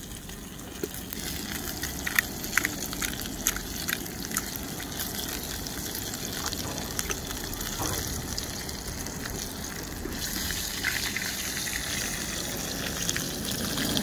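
Ribeye steak sizzling in a hot oiled pan on a portable butane camp stove, a steady sizzle with scattered sharp crackles. The sizzle grows a little louder about ten seconds in.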